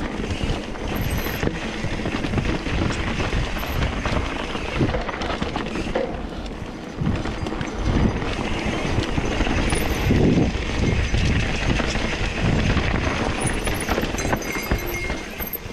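Mountain bike rolling over a dirt and rocky trail: tyres crunching over dirt and stones, the bike rattling, with frequent knocks as it hits rocks.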